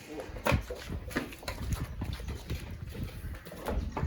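Scattered knocks and scuffling steps of a goat being led out and handled, over a low rumble.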